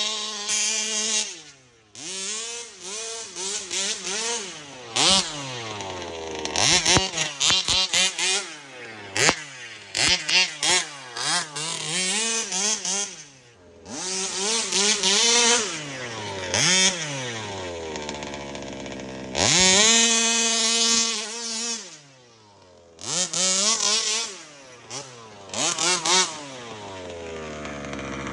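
Small two-stroke RC car engine revving over and over, its pitch climbing under throttle and sliding back down toward idle, with short sharp throttle blips in between.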